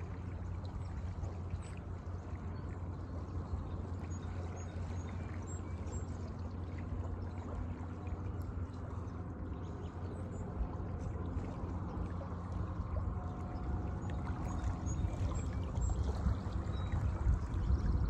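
Shallow seawater lapping and washing over rocks and pebbles at the shoreline, a steady watery wash that swells a little louder near the end.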